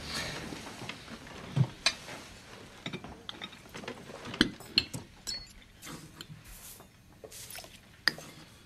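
Cutlery and china clinking on a table: forks and spoons tapping against plates in a few scattered light clicks, with one duller knock of a dish about one and a half seconds in.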